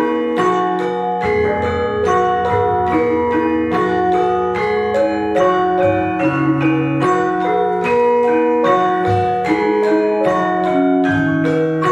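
Javanese gamelan in slendro tuning playing a gending bonang: bronze metallophones, bonang gong-chimes, kenong pots and gongs struck in a steady, even stream of ringing notes, about three strokes a second.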